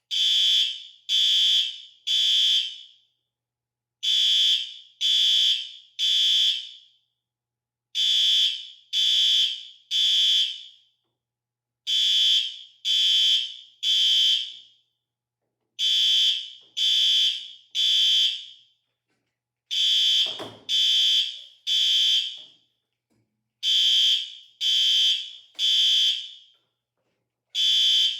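Fire alarm sounding the three-beep temporal evacuation pattern: three loud, high beeps about a second apart, then a pause, the group repeating every four seconds.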